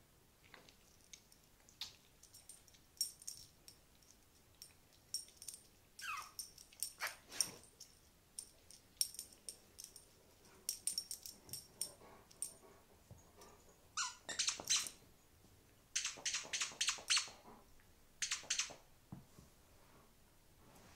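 Great Dane nosing and licking at close range: a scattered string of small wet clicks and squeaks, with a short falling whine about six seconds in and another around fourteen seconds.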